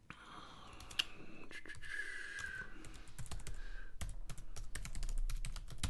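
Typing on a computer keyboard: scattered keystrokes at first, then a fast, dense run of clicks in the second half.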